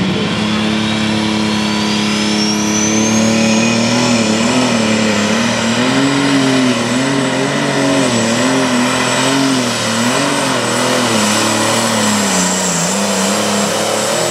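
Oliver 2150 light limited super stock pulling tractor's turbocharged diesel engine at full power pulling the sled, with a high whine that climbs over the first few seconds. The engine note rises and falls again and again through the run, and dips near the end.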